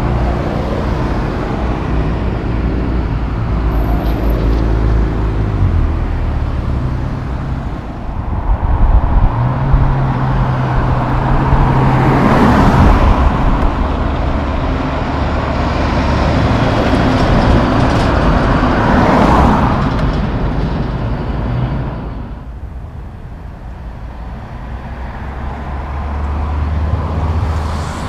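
Peterbilt 379 semi-truck pulling a loaded car-carrier trailer along a street, its diesel engine note stepping in pitch a few times, with cars driving past. The road noise swells twice as vehicles pass close, fades about two-thirds of the way through, then rises again near the end.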